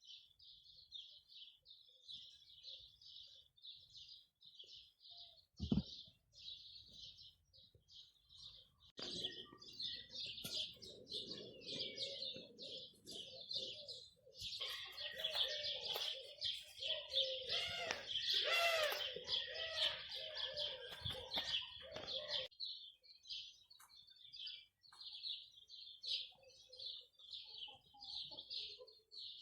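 Birds chirping in a rapid, steady run of short repeated high chirps. From about nine to twenty-two seconds in, louder calls with rising and falling pitch join in, and there is a single sharp knock about six seconds in.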